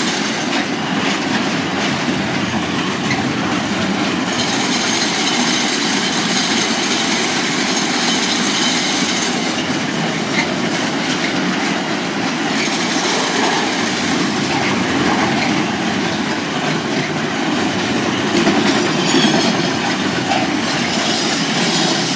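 Intermodal container freight train's wagons rolling past at close range: a loud, steady rumble and clatter of wheels on the rails, with a thin high wheel squeal at times.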